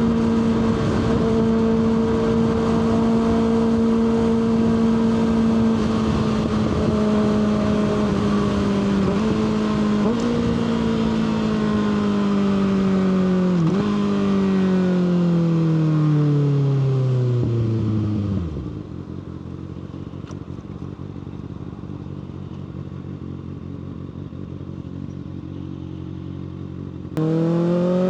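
Kawasaki ZX-6R 636 inline-four sportbike engine at steady cruising revs, then slowing down: the revs fall, jumping up briefly a few times as it shifts down, settle into a quiet idle for several seconds, and climb sharply near the end as the bike pulls away under throttle.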